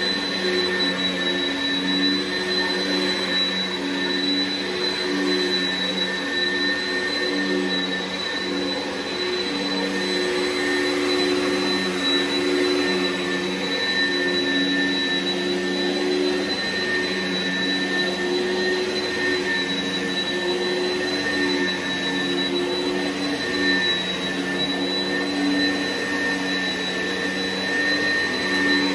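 Upright vacuum cleaner running steadily on carpet, a constant motor hum with a steady high whine over the rush of air.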